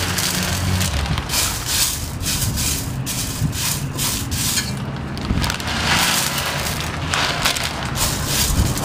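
Dry yellow split peas rustling and clattering against the inside of a steel pot as a hand stirs and sifts through them, an uneven gritty rattle that surges and eases.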